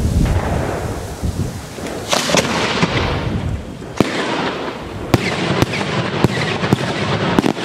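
125mm cylinder firework shell with titanium salutes: a low boom at the start, a burst about two seconds in, then a quick series of sharp, cracking bangs from the salute reports over the last few seconds.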